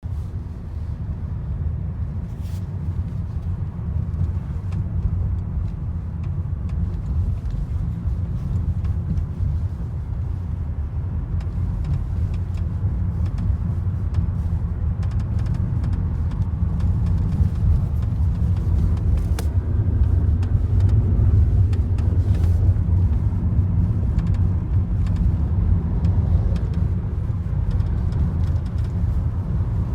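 Toyota Corolla E180 driving, a steady low road rumble growing slightly louder, with occasional faint short squeaks or creaks from the car that the owner is trying to track down.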